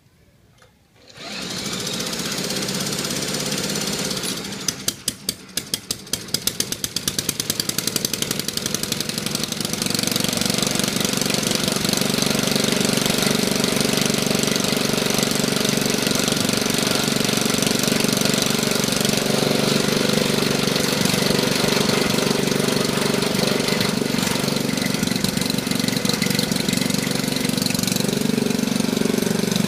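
Briggs & Stratton Model 8 single-cylinder engine on a vintage David Bradley walk-behind tractor being started: a few seconds of steady whirring as it is cranked, then separate firing beats about four seconds in that quicken until the engine settles into a steady run.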